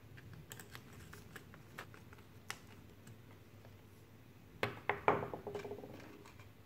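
Faint clicks of a small screwdriver and screws while the board is screwed into a plastic case, then a few louder knocks about five seconds in as the screwdriver is set down on the table and the plastic screw box is handled.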